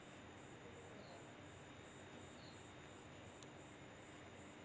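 Near silence: faint steady room hiss, with a faint high-pitched pulsing about twice a second.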